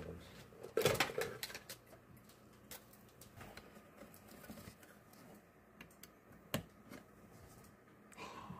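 Clicks and knocks of a plastic laptop-style case being handled and turned over on a wooden desk, while a USB-C power cable is plugged into its Raspberry Pi 5. The loudest clatter is a short cluster about a second in. A single sharp click comes later.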